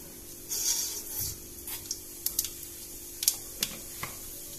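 Mustard seeds in hot oil and ghee: a short sizzle as they hit the oil about half a second in, then about half a dozen sharp, irregular pops as the seeds start to splutter.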